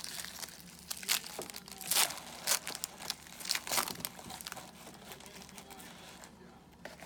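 Wrapper of a pack of football trading cards crinkling and tearing as it is opened and handled, in a run of sharp rustles that thin out and grow quieter near the end.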